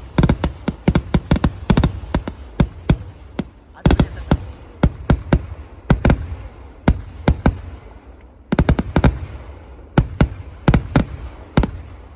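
Fireworks exploding in rapid, irregular volleys of sharp bangs and cracks, several a second, each with a short trailing echo. The volleys thicken about four seconds in and again around nine seconds.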